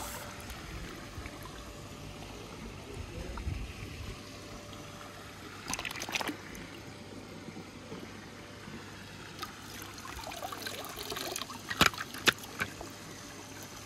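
Swimming-pool water sloshing and trickling as a plastic scoop moves through it and lifts a small die-cast toy car out, water running off the scoop. A few short, sharp splashes come about six seconds in and again near the end.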